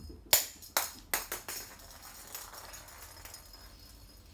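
Five sharp clicks or taps in quick, uneven succession within the first second and a half, the first the loudest, each with a brief ring.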